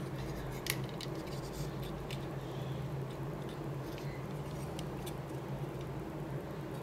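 Hands handling a small scale model aircraft: scattered light clicks and taps, the sharpest a little under a second in, over a steady low hum.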